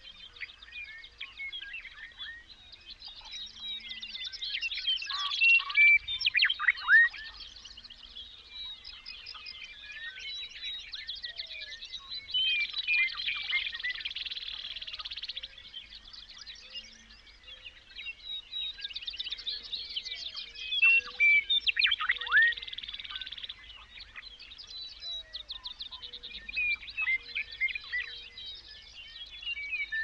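Several songbirds singing at once in a dense chorus: rapid chirps, trills and downward-sweeping whistles overlapping throughout, swelling louder in a few stretches.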